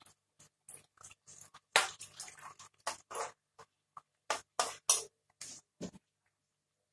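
A metal spoon scraping and clinking against a pan while stirring a pork-and-shrimp curry, the liquid sloshing. A string of short scrapes with brief silent gaps, the loudest about two seconds in and again about five seconds in.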